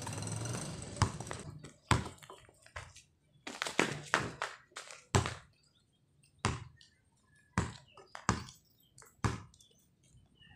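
Basketball bouncing on asphalt: a series of separate thuds, with a quick cluster of bounces around four seconds in and single bounces about a second apart near the end.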